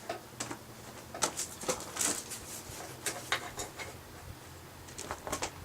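Scattered light clicks and scrapes as a fluxed scarf weld in mild steel is set down into a coal forge fire, metal shifting against coal.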